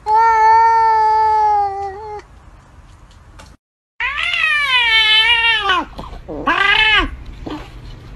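Domestic cats meowing: one long, steady meow of about two seconds; then, after a short break, another long meow whose pitch rises and falls with a waver, followed by a short arched meow.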